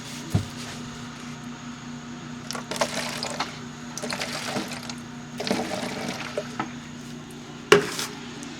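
Gasoline being poured in several short spurts into the small fuel supply feeding the carburetor, over the steady hum of a Harbor Freight 3200-watt generator. There is a sharp click near the end.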